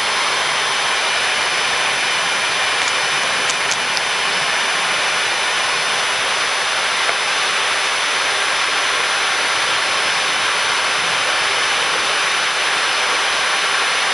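Steady cockpit noise of a Boeing 737-800 taxiing, its CFM56-7B jet engines at idle, heard as an even hiss with faint steady high whines.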